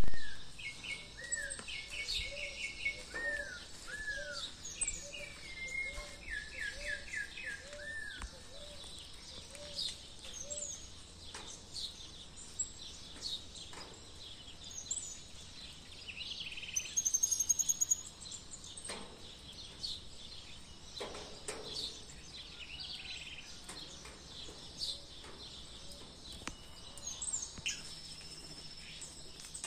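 Several birds calling and singing together: repeated downward-sweeping whistles, short trills and chirps, with a lower call repeated evenly for the first several seconds and a fast rattling series about halfway through, over a faint steady background.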